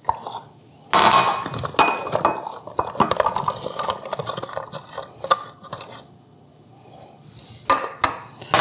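Diced onion being tipped from a plastic container into a glass bowl: a sudden clatter of pieces sliding and dropping about a second in, with plastic clinking against the glass for a few seconds. After a short pause, a few sharp knocks as the container and chopper are set down on the counter near the end.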